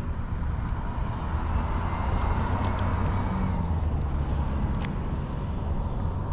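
Steady low rumble of vehicle noise, with one sharp click about five seconds in.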